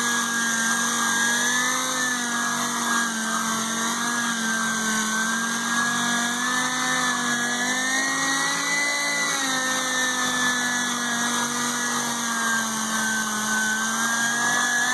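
Dual-action sander running steadily while 1000-grit sanding a motorcycle windshield, its hum wavering slightly in pitch as it is pressed and moved across the surface; it cuts off at the very end.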